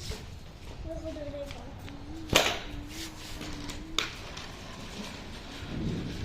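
Gusty wind rumbling on the microphone, with a faint wavering tone and two sharp knocks, one about two seconds in and one about four seconds in.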